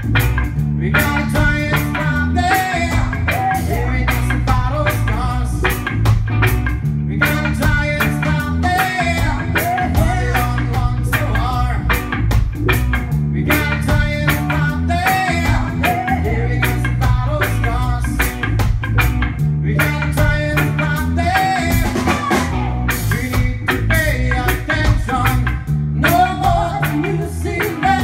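A reggae band playing a song: drum kit, bass and electric guitars with a singer's voice over a steady beat.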